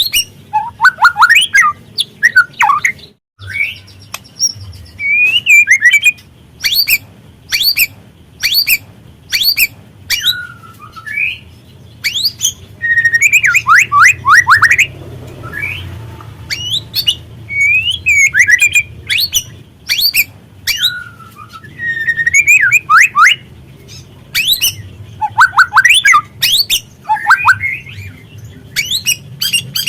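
White-rumped shama (murai batu) singing: phrase after phrase of sliding whistles mixed with sharp, harsh clicking notes, a new phrase every second or so.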